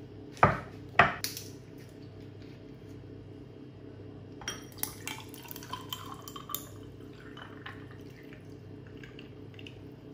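Kitchen utensils and cookware clattering: two sharp knocks about half a second and a second in, then a run of lighter clinks and taps a few seconds later, over a steady low hum.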